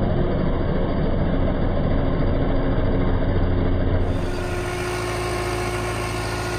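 Diesel engine of a modified HMT 5911 tractor running loud and rough at close range. About four seconds in, the sound turns quieter and steadier, with a steady hum over the engine.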